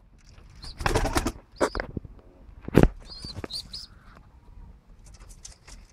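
Pigeons in a loft: a burst of wing flapping about a second in, a couple of sharp knocks, then a few short high squeaks.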